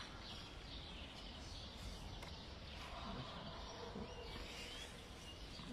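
Quiet outdoor background: a steady low hum of ambient noise with a few faint bird chirps about four seconds in.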